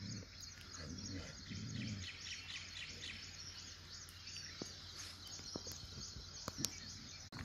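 Quiet outdoor ambience of birds twittering, a rapid run of high chirps, with a few faint clicks in the second half.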